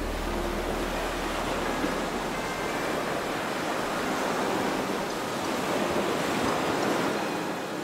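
Ocean surf sound effect: a steady wash of waves that swells to its loudest about six to seven seconds in, as the bass of the background music fades away in the first couple of seconds.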